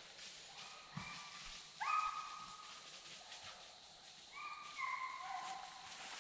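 Deer hounds baying in the distance while running a deer: a few long, drawn-out bays, the loudest about two seconds in, some sliding down in pitch at the end.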